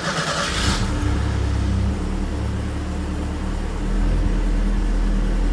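1984 Mustang SVO's 2.3-litre turbocharged four-cylinder engine catching at the start and then idling, heard from inside the car. The idle gets louder about four seconds in.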